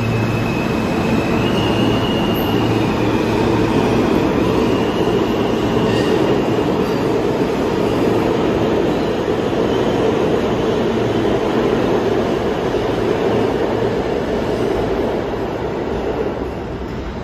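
New York City subway train running through the station with a loud, steady rumble and rail noise. A thin, high wheel squeal sounds in the first few seconds, and the noise eases slightly near the end.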